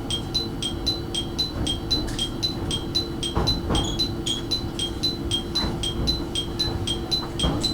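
Electronic two-tone warning chime, two high notes alternating rapidly and evenly, about four strokes a second, over a steady low hum from the train.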